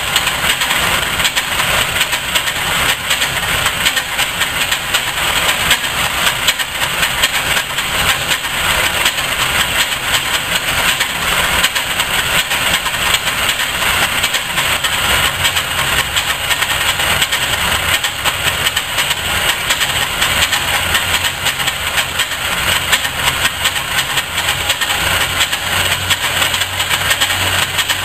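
Rockford metal lathe running with its cutting tool facing the end of a spinning metal workpiece: a steady machining noise from the motor, gearing and the cut. A low hum grows louder near the end.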